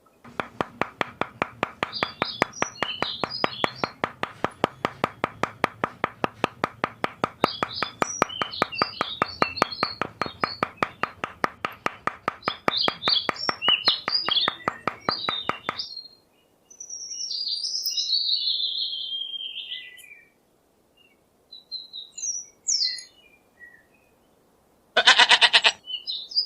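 A fast, regular pulsing sound with bird chirps over it for about fifteen seconds, stopping suddenly. A single falling bird call follows, and a short animal bleat comes near the end.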